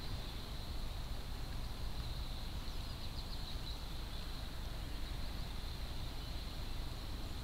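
Outdoor ambience dominated by wind rumbling and buffeting on the microphone, with a steady faint high hiss and a few faint high chirps about three seconds in.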